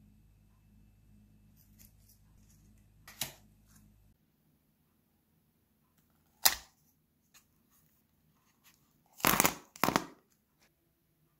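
A few separate sharp knocks and clicks, the loudest about six and a half seconds in and a close pair near the end. A faint low hum stops abruptly about four seconds in.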